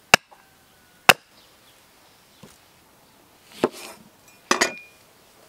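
Two sharp chops of an axe into a thin upright log, about a second apart. Later, a kitchen knife cuts through a lemon and strikes a wooden board twice.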